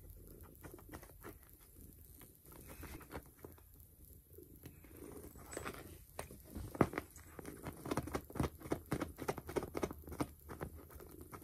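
Soft rustling of fur and fabric with many small scratchy clicks as a hand rubs a ginger cat lying on a fleece blanket. The clicks come thicker in the second half.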